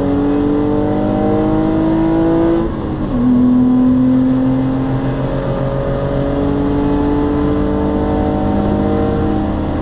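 BMW 323i E46's 2.5-litre M52TU straight-six, remapped with new intake cam and intake manifold, pulling hard from inside the cabin: the revs climb, drop with an upshift about three seconds in, then climb again more slowly.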